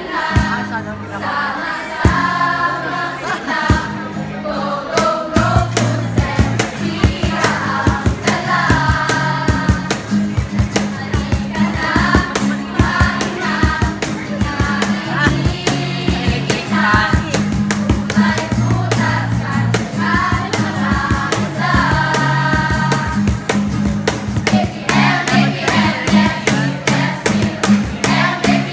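A group of voices singing a jingle in chorus over a backing track with bass and a steady beat.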